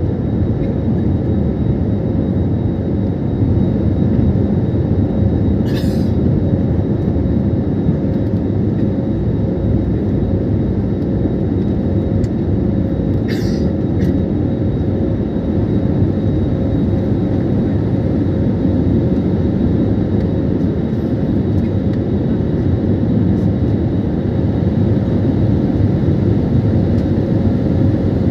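Jet airliner cabin noise during takeoff and climb: the engines and airflow make a loud, steady rumble with a faint constant hum above it. Two brief clicks come through, about 6 and 13 seconds in.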